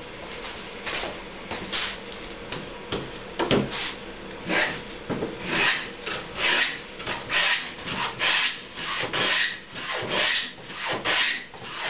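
Antique plow plane cutting a groove along the edge of a wooden board: short, uneven strokes at first with a single knock about three and a half seconds in, settling into a steady back-and-forth of about two strokes a second.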